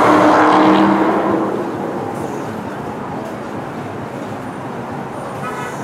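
Bombardier R62A subway train moving slowly along the elevated track. Wheels and motors are loudest at first, with a humming tone that fades after about a second and a half, then settle to a steady rumble.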